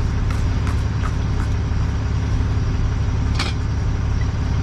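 Tow truck engine idling with a steady low hum, with a few light clicks and a sharper knock about three and a half seconds in as the car is secured to the wheel lift.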